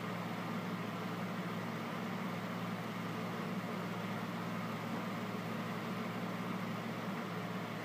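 A steady low hum, like a motor or appliance running, unchanging throughout.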